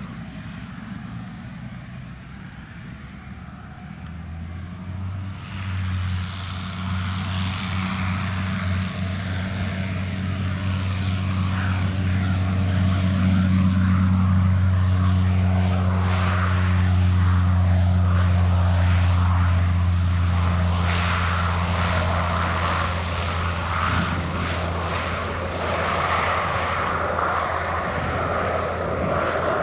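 Zlin Z-137T Agro Turbo's Walter M601 turboprop engine and propeller powering up for take-off. A steady low propeller drone comes in about four seconds in, and the engine noise grows louder through the take-off run. It stays loud as the plane lifts off and flies low, easing a little near the end.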